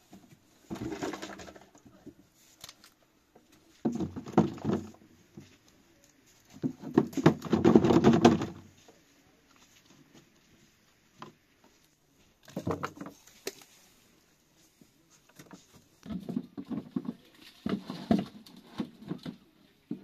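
Rustling and handling of fresh herbs and vegetables being packed into plastic jars, in several separate bursts of a second or two with short quiet gaps between.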